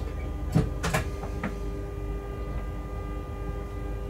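Steady hum inside a freight locomotive's cab, with several fixed tones in it. Between about half a second and a second and a half in come four or five sharp clicks and knocks; the first is the loudest.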